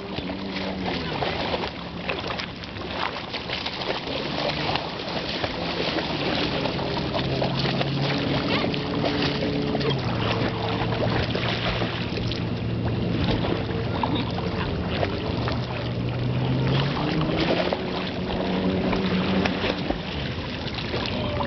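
Water splashing and sloshing as dogs swim and a person wades through shallow lake water, over a steady motor drone that shifts in pitch a couple of times.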